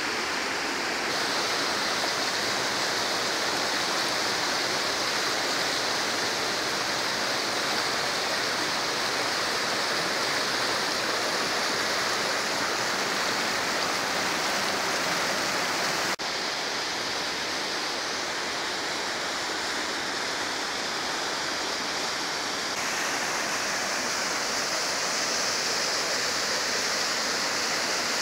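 A fast, shallow mountain river rushing over rocks and small rapids: a steady, even rush of water.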